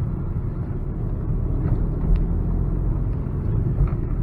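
Car running along a street, heard from inside the cabin: a steady low rumble of engine and road noise, with a couple of brief low bumps, about two seconds in and near the end.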